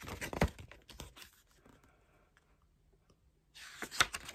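Glossy photobook pages being turned by hand: a papery rustle with small snaps just as it begins, then about two seconds of near quiet, then another page turn near the end.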